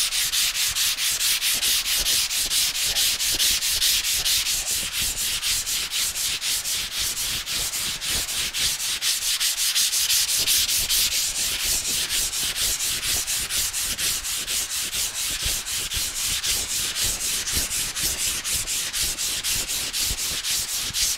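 Hand sanding block scrubbing back and forth over a primed car body panel, a steady rhythmic rasp of about four strokes a second. The primer is being block-sanded to knock down high spots.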